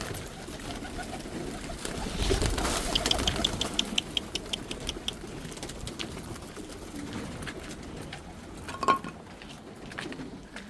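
Domestic pigeons cooing in their loft. About three seconds in comes a quick run of ticks, about five a second, and near the end a single sharp knock stands out as the loudest sound.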